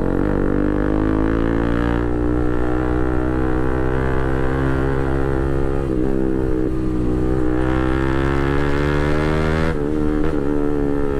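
Bajaj Pulsar RS200's single-cylinder engine through an Akrapovic full titanium exhaust with the dB killer removed, running loud on the move. Its pitch climbs slowly under throttle, then drops with a few crackles about ten seconds in.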